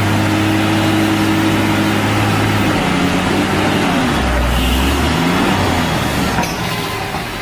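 Tata 3118 heavy truck's diesel engine running as it pulls through a hairpin bend: a steady low engine note at first, then the pitch dips and rises again about halfway through, with a deep rumble as the truck passes close.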